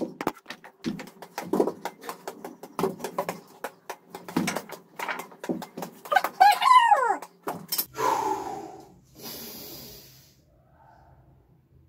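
Badminton racket striking a small ball of taped paper over and over in quick, uneven taps, with a rising and falling bird-like call about six seconds in. A short hiss follows, and the tapping stops near the end.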